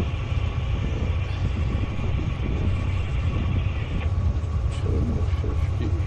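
Tugboat's diesel engines running steadily, a deep drone with a steady higher whine over it that drops away about four seconds in.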